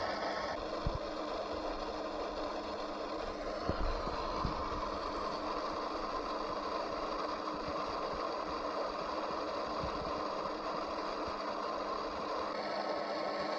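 A steady mechanical hum made of several fixed tones over a hiss, with a few soft knocks in the first five seconds.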